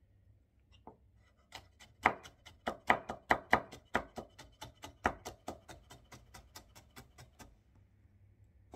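Kitchen knife julienning a sheet of cucumber peel into thin strips on a wooden cutting board: a quick, even run of sharp taps of the blade on the board, about four a second, starting about a second and a half in and fading out near the end.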